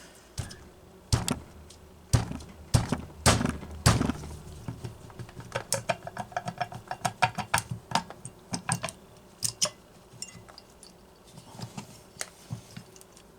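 Metal clinks and knocks of hand tools and parts while a Homelite Super XL chainsaw is taken apart. There are several sharp knocks in the first four seconds, then a run of lighter, quicker clicks.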